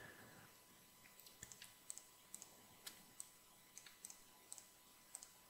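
Faint computer mouse and keyboard clicks, irregular, about two a second, starting about a second in, over near silence.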